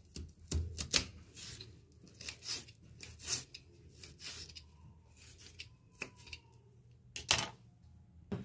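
Knife slicing and chopping a red onion on a granite countertop. Sharp cuts come at uneven intervals, with the blade knocking the stone, loudest about a second in and near the end.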